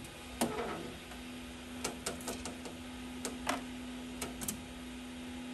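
Irregular light clicks and knocks, about ten of them spread over the first four and a half seconds, over a steady low hum.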